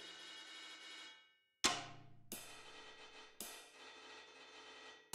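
Sampled drum-kit cymbals from a drum sampler, struck from controller pads: a ring that stops short about a second in, then a run of separate cymbal hits, the first with a low drum thud under it. The cymbals are choked instead of ringing out, the sign of the controller's poly pressure messages gating the sampled notes.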